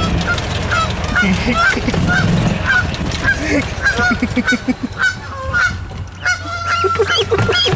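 Canada goose honking repeatedly in short calls, about three a second, with a quicker pulsing run in the middle and one longer held call near the end: alarm and defence calls from a goose guarding its gosling against a person. A cart engine runs low underneath.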